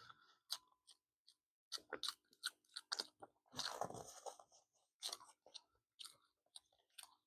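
Close-miked chewing: irregular short wet clicks and smacks of a mouth working through food, with a slightly longer stretch just past halfway.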